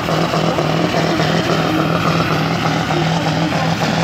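Pulling truck's diesel engine running hard under heavy load as it drags a weight sledge down the track, a steady loud drone with no letting up.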